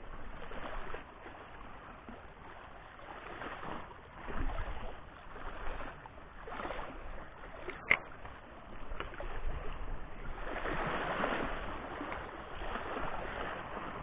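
Shallow sea water lapping and splashing around shoreline rocks, rising and falling in surges and loudest about ten to twelve seconds in. A single sharp click about eight seconds in.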